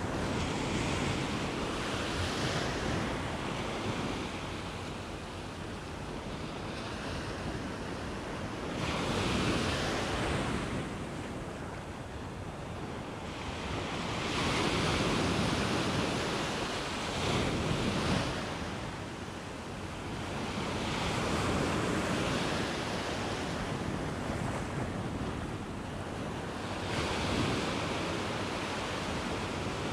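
Small surf breaking and washing up and back over the sand at the water's edge, the rush swelling and easing every few seconds.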